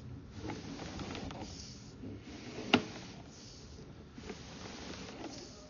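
Sewer inspection camera push cable being fed into the line, giving a steady hiss with scattered light clicks and one sharp knock about three seconds in.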